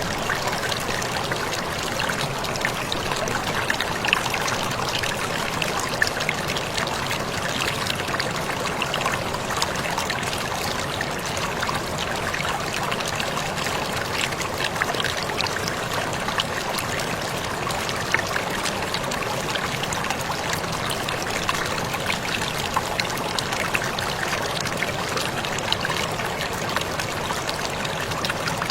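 Water falling and splashing steadily with a constant rush, the sound of a small waterfall.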